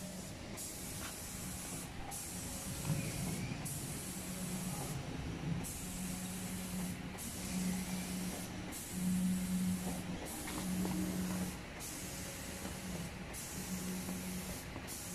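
Automatic furniture spray-painting machine at work: the hiss of its spray gun stops briefly about every second and a half, between passes. A low hum from the gantry drive comes and goes underneath.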